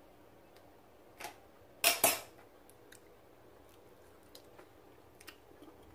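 Metal kitchen tongs clicking, with one short clatter about two seconds in and a few faint clicks after.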